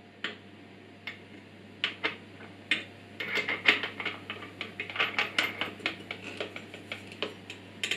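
Hand work on an angle grinder and its metal stand: irregular clicks, clinks and knocks of metal and hard plastic parts as a Parkside PWS 125 E4 angle grinder is fitted into a Powerfix angle grinder stand. A few single knocks come first, then a quick run of taps from about three seconds in until near the end.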